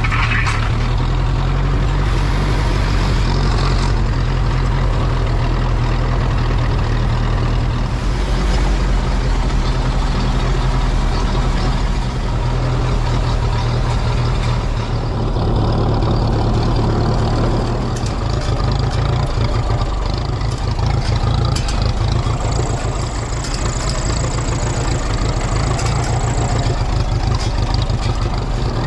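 Vintage Ferguson TEA tractor's four-cylinder engine running steadily at a low, even pace while the tractor moves a hay bale on its forks.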